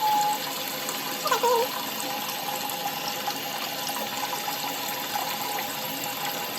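Water running steadily from a tap, a continuous even rush, as the wig is rinsed.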